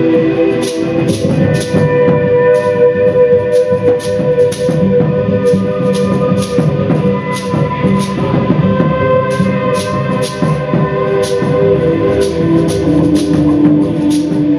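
Live music from a small ensemble: several steady tones are held while sharp, bright percussive strikes come irregularly, about two a second.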